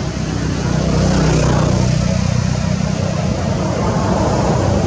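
Motor vehicle engine running with a steady low hum, growing slightly louder about a second in.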